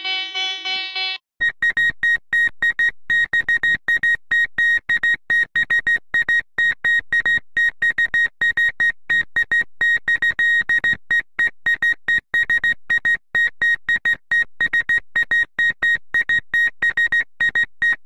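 A fast electronic tone melody cuts off about a second in. It gives way to a fictional emergency alert made of one high electronic beep tone, repeated rapidly and unevenly, several short beeps a second.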